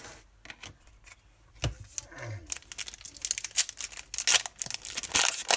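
Foil trading-card pack being torn open and crinkled by hand: a few light clicks of card handling, then from about two and a half seconds in a dense, rapid crackling and rustling of the wrapper.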